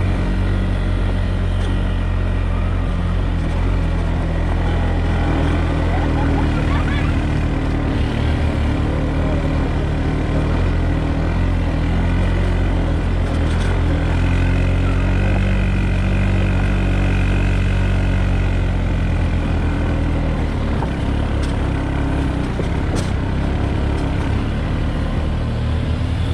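Off-road vehicle's engine running steadily at a nearly even speed, a constant low drone, with a few faint clicks during the ride.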